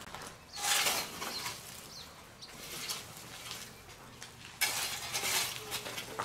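A metal shovel scraping and scooping hot coals and ash on the ground, in rough noisy scrapes. The longest and loudest scrape starts about four and a half seconds in.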